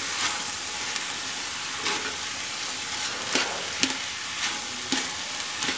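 Sweet corn kernels and scallions sizzling in a hot metal wok while a metal spatula stir-fries them. A steady hiss runs throughout, with the spatula clicking and scraping against the pan about six times.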